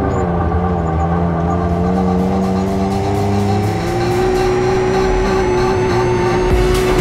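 Off-road vehicle engine running at a fairly steady pitch, with background music carrying a steady beat, the beat clearer near the end.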